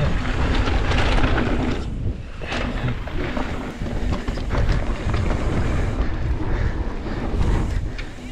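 A mountain bike riding fast down a dirt trail: wind buffeting the microphone over the rumble of knobby tyres on dirt and rock, with short knocks and rattles from the bike over bumps.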